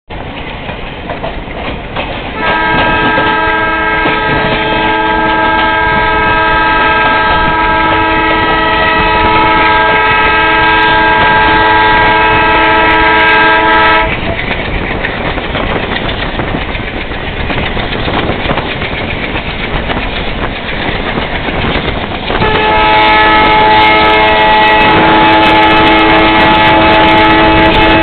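WDM3A diesel locomotive horn sounding two long blasts. The first starts about two seconds in and lasts about eleven seconds. The second starts about eight seconds after the first ends and is still sounding at the end. Between the blasts the train's running noise is heard.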